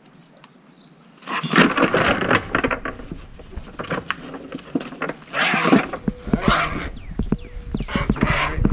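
A weighted cast net is thrown and lands over a great blue heron, with loud rustling and scattered knocks and clatters starting suddenly a little over a second in. A deep rumble from the microphone being jostled runs under it.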